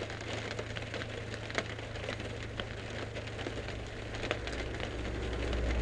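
Scattered small clicks and crackling rustles of electrical wires being handled and connected, over a steady low hum.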